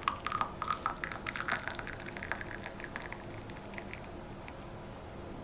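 Tea being poured from a metal teapot through a mesh strainer into a glass tea cup, a trickling, splashing stream that thins out after about three seconds.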